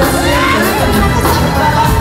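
Live pop-rock band playing at a concert, with a voice singing gliding notes over it and crowd noise from the audience.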